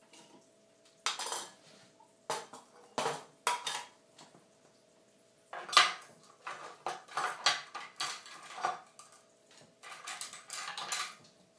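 Clinks and scrapes of a brush against a medium cup and palette as the palette is wetted with oil painting medium. They come in several short clusters, with the busiest stretch in the middle.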